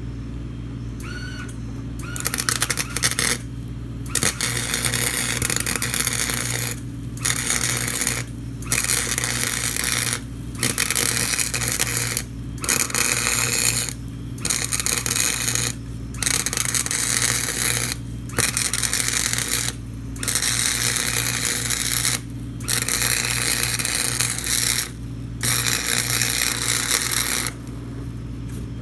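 Electric arc welding a steel patch onto a lawnmower deck: about a dozen crackling, hissing weld runs of roughly two seconds each, with short pauses between them, over a steady low hum.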